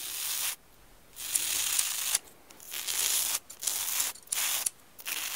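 Straight razor scraping through a beard in a series of rasping strokes, about six, each lasting under a second with short gaps between.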